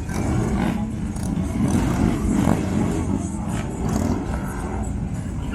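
Several motorcycle engines running together in a steady low rumble, with crowd noise over it.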